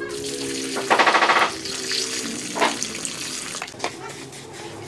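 Water poured from a bucket into a heap of dry cement mix, splashing loudest about a second in, followed by a few scraping trowel strokes as the wet mix is worked.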